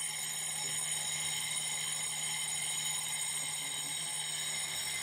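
Electric fire alarm bell ringing steadily and without pause: the alarm set off by a tripped detector of a gas-type fire-extinguishing system.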